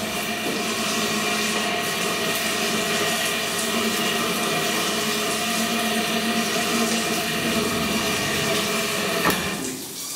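Water running steadily with a steady hum under it. It cuts off with a click about a second before the end.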